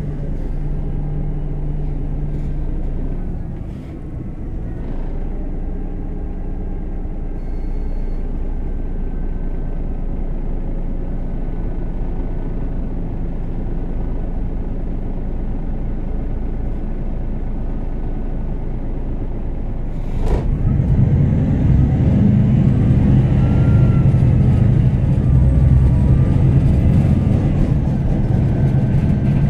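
MAN NG 313 articulated city bus's engine running, heard from inside the passenger cabin with a steady low hum. About 20 seconds in there is a sharp knock, and the engine then gets clearly louder.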